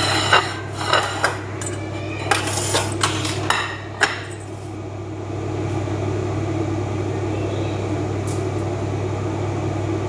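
Cookware clinking and knocking: a run of sharp metal-on-metal clinks over the first four seconds, then only a steady low hum.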